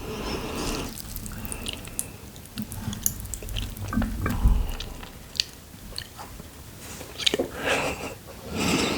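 A person chewing a mouthful of Samyang 2x Spicy noodles close to the microphone, with scattered wet mouth clicks and smacks.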